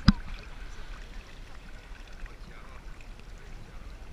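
Shallow seawater sloshing and lapping as people wade through it, with one sharp knock right at the start.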